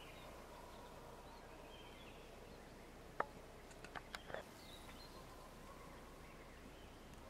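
Quiet spring-forest ambience: low hiss with faint, scattered bird chirps. A sharp click comes about three seconds in, and a few softer clicks follow about a second later.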